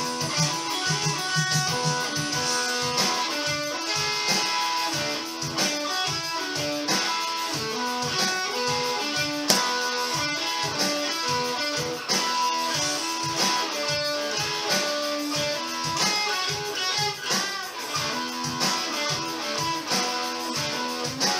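Electric guitar playing a funky rock riff: a steady, unbroken run of quick picked notes and short strummed chords.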